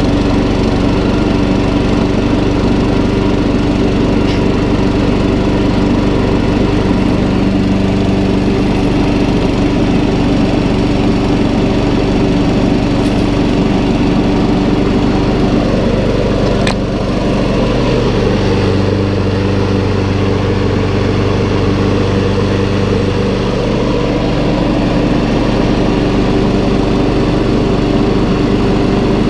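Craftsman walk-behind lawn mower's small single-cylinder engine running steadily after a carburetor bowl gasket replacement, the carb no longer leaking. A single click and a slight change in engine tone come about two-thirds of the way through.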